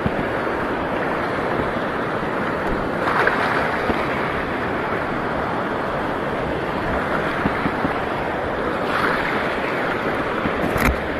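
Sea waves washing in shallow water, a steady rush that swells twice, about three and nine seconds in, with wind on the microphone and a brief crackle near the end.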